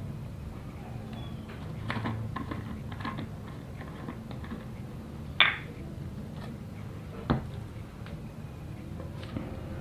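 Light clicks and taps of a plastic funnel being set into a motorcycle engine's oil filler hole, over a steady low hum. A sharper, louder click comes about five and a half seconds in, and a knock a couple of seconds later.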